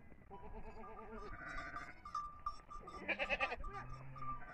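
A mixed flock of sheep and goats bleating, several quavering calls overlapping, with one louder bleat about three seconds in.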